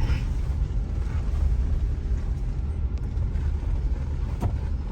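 Steady low rumble of a car driving slowly, with one short click about four and a half seconds in.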